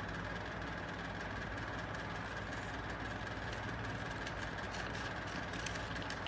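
A steady mechanical hum with a thin high whine, and a few faint snips of scissors cutting paper.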